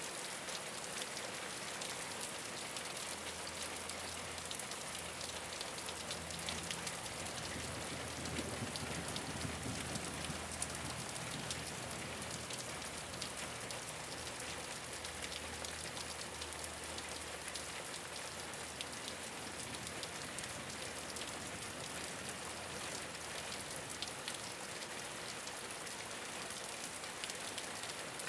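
Steady rain falling on a rooftop, a constant hiss dense with the patter of individual drops, with a faint low rumble underneath for most of the time.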